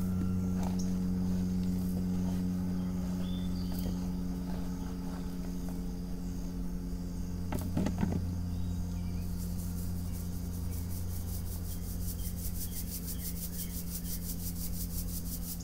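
Soil being shaken and rubbed through a hand-held metal sieve, with a knock of the sieve about halfway through, over a steady low hum. From a little past halfway an insect calls in a rapid high pulsing, about six pulses a second.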